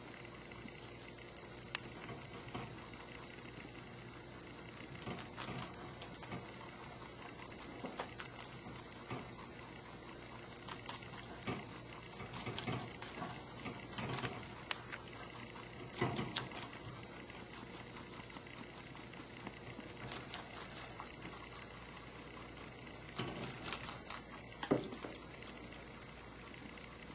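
Pet rabbits rustling about in the hay of their cage, short crackly bursts coming in clusters every few seconds over a steady hiss.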